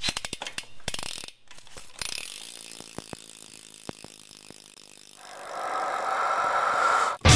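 Shadow Conspiracy Stun cassette hub on a BMX rear wheel ratcheting as the wheel freewheels: a fast run of clicks that slows and thins out as the wheel coasts down. The hub is loud. Near the end an unidentified sound swells louder.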